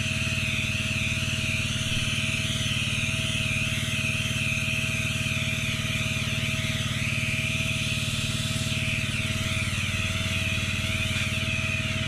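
Pressure washer's engine running steadily at low revs, with the lance spraying a low-pressure rinse of water that hisses onto sandstone paving slabs.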